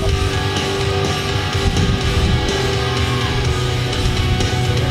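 Rock music with strummed electric guitar and a steady bass, playing over public-address loudspeakers.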